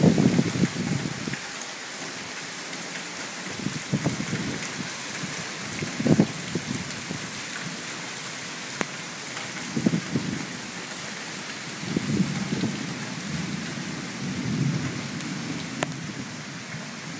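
Steady hiss of heavy rain falling, with short low rumbles surging every few seconds.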